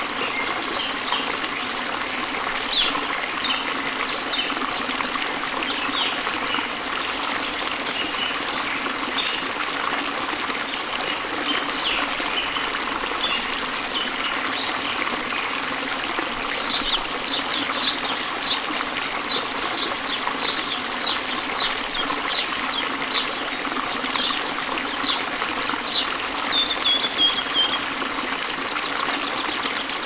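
Water trickling steadily, with small birds chirping over it. The chirps come quick and many from about halfway on, and a short trill sounds near the end.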